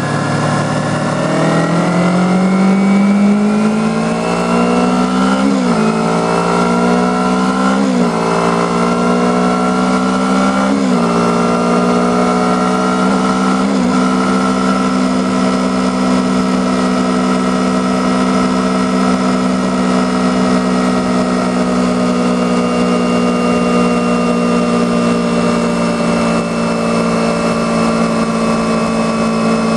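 A 2010 Kawasaki Ninja 250R's parallel-twin engine accelerating through the gears: the pitch climbs, drops sharply at each of four upshifts about six, eight, eleven and fourteen seconds in, then holds nearly steady at cruising speed.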